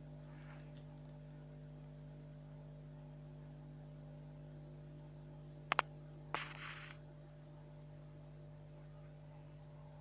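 Steady low electrical hum, with a sharp double click just before six seconds in, then another click and a brief rustle.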